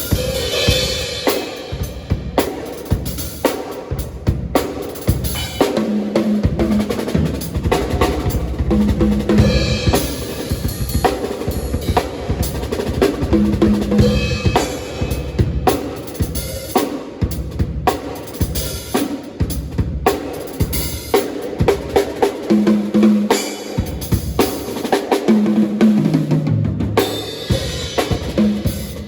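Acoustic drum kit played at a sound check: a steady stream of kick and snare hits broken up by fills. Near the end a fill steps down in pitch across the drums.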